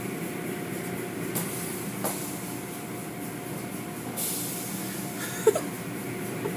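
Automatic car wash machinery running: cloth brush curtains and water spray working over a car, a steady rumble and hum with a brief burst of hiss about four seconds in.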